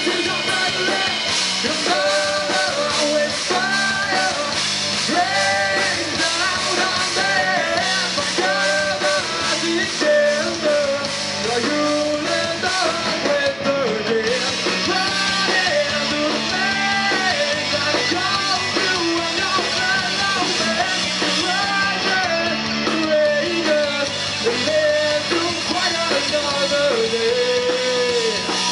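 Live rock band playing: a male singer over electric guitars and drums.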